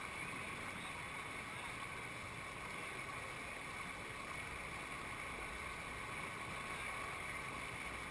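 Steady rush of whitewater pouring over a river ledge into a foaming standing wave, heard close to the water.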